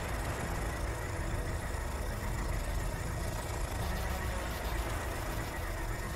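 A steady low rumbling drone from a film soundtrack's sound design, with a faint thin high tone above it and no clear hits.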